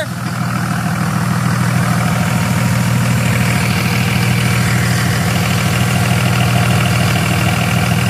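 Dodge Ram pickup's engine idling steadily, driving the power-steering pump whose hydraulic pressure is used to press a seized wheel hub out of its steering knuckle. A higher steady whine joins about three seconds in.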